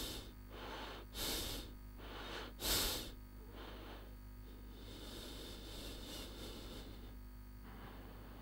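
A man gasping for breath in three harsh breaths over the first three seconds, the third the loudest, then fainter, uneven breathing. It is the sound of someone struggling for air.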